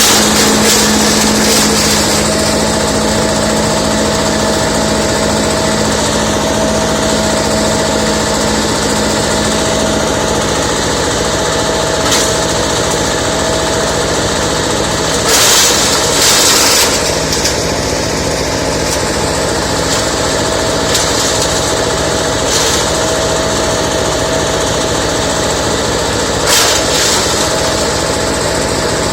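Mobile leaf-and-branch chopper driven by a 22 HP diesel engine, running steadily with a constant whine. A few brief louder bursts of rushing noise break through, the longest about halfway through.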